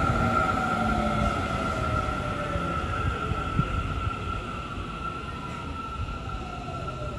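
Seibu 30000 series electric commuter train braking to a stop along the platform: a steady high whine with lower motor tones slowly falling in pitch as it slows, over the rumble of wheels on rail. The sound fades as the cars move away.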